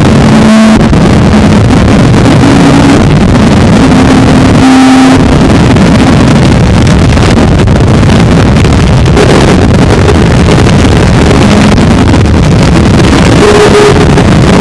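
Harsh noise music: a loud, dense wall of distorted noise with short held tones appearing and fading within it. The low end drops out briefly just after the start and again about five seconds in.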